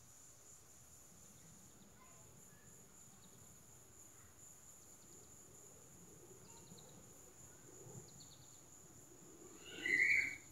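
Faint outdoor ambience: a steady high insect drone with a few soft bird chirps and quick ticking trills. Near the end comes one short, loud, high-pitched sound, the loudest thing here.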